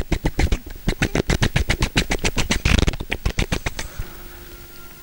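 A rapid, even run of sharp clicks, about eight a second, that stops just before four seconds in and leaves a faint steady hum.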